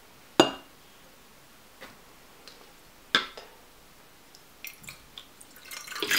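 Sharp clinks of glassware knocking together as wet Orbeez water beads are scooped from a glass bowl into a glass globe: one loud clink about half a second in, another around three seconds, and a few faint taps. Near the end a wet rush of beads and water poured into the glass globe.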